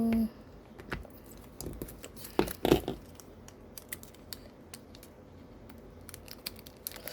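Scattered small clicks and crinkling of paper and plastic as decorating materials (tape, stickers, cut-out pieces) are handled on a desk, with a louder rustle a little over two seconds in.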